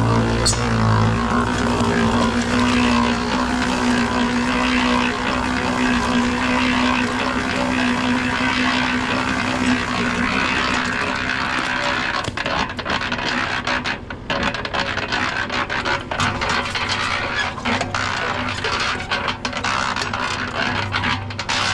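An engine running steadily, with irregular clicks and knocks in the second half.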